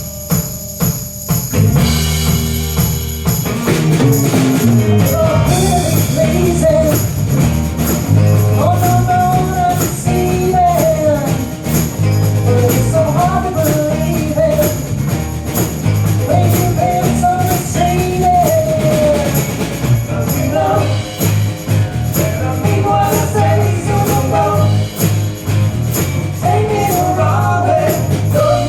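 Rock band playing a song with drums and tambourine, a bass line coming in about two seconds in and a wavering lead melody joining a couple of seconds later.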